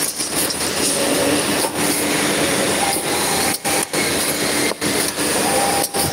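Copper tube cutting and end forming machine running, its chipless cutter unit working: a steady, dense mechanical whirring and hiss, broken by a few brief dips in the second half.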